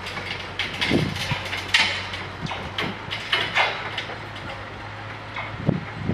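Steady low engine hum with a string of irregular clanks and knocks, from rail track-work machinery.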